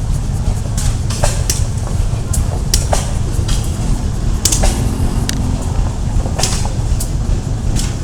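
Blacksmith's hammer striking metal in irregular sharp clinks, some with a brief ring, over a steady low rumble.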